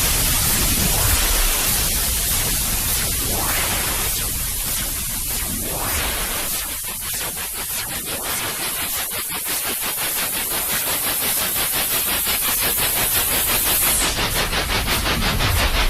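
Baby-soothing white noise: a steady, fairly loud hiss across all pitches whose tone shifts with slow sweeps. About two seconds before the end it changes to a fast, even pulsing with the highest hiss gone.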